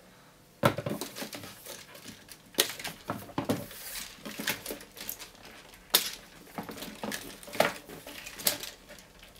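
Hard plastic LEGO Technic parts clicking and knocking as the big wheels are pulled off a model truck's axles, set down on a table and the chassis is handled: a string of irregular clicks and knocks.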